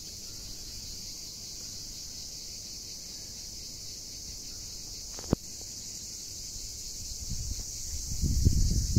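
Steady, high-pitched chorus of insects in sunny pine woods. A single sharp click sounds about five seconds in, and a low rumbling builds near the end.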